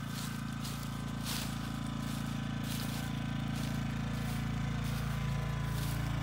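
Portable generator running steadily, muffled inside a wooden generator box, its hum slowly growing louder as it is approached. Faint footsteps in dry leaves.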